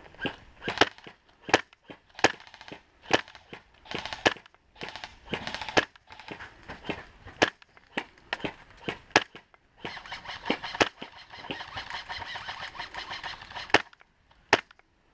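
Airsoft guns firing: a long series of sharp, short shots, irregularly spaced at about one to two a second, with a steady hiss between them.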